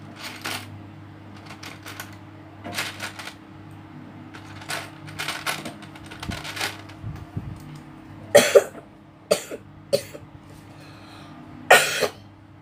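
Small plastic Lego pieces click and clatter as they are handled. Then a person coughs a few times in the last few seconds, a phlegmy cough from a mild illness.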